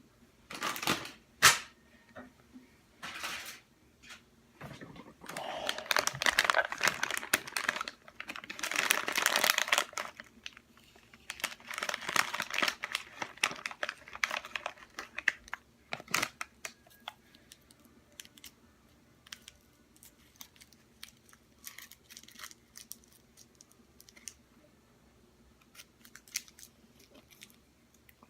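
Cough drop wrapper crinkling as it is handled and unwrapped: a few sharp crackles, then long stretches of dense crinkling in the first half, thinning to scattered small crackles and clicks.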